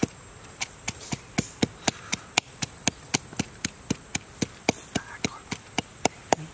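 Wooden pestle pounding chilies and garlic in a wooden mortar, an even rhythm of dull knocks at about four strikes a second.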